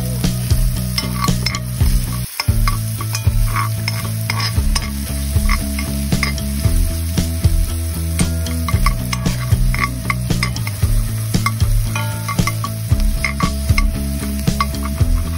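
Diced onion and garlic sizzling in fat in a cast-iron skillet while a spoon scrapes and taps against the pan as they are stirred, over a low steady hum.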